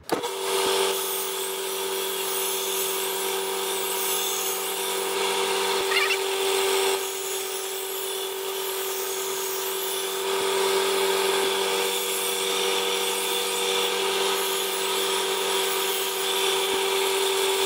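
Belt grinder with a 120-grit belt running steadily, a hum with a hiss over it, while the steel edge of a large curved fish knife is ground against the belt to set the initial bevel. A short rising whine comes about six seconds in.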